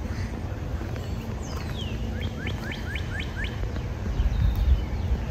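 A songbird singing: one falling whistle, then a quick run of about seven short rising notes, with a few fainter calls later. Under it is a steady low rumbling noise.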